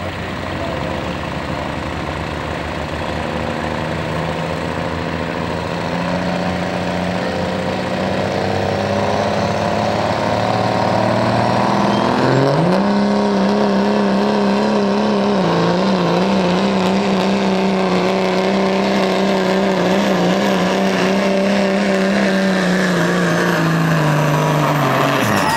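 Dodge Ram pickup's Cummins inline-six diesel pulling a weight-transfer sled under full load. Its revs build slowly, jump up sharply about halfway through and hold high with a slight waver, then fall away just before the end as the pull finishes.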